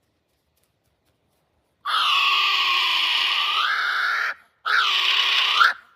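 Kiwi calling: after a near-silent start, a long shrill call, then a shorter one that dips and rises in pitch, with a third call beginning at the very end.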